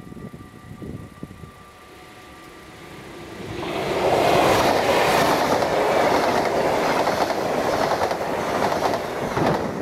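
NS VIRMm double-deck electric intercity train passing over a level crossing. Its rush and wheel clatter build from about three and a half seconds in, stay loud, and drop away near the end, while the crossing's mechanical bells ring steadily underneath.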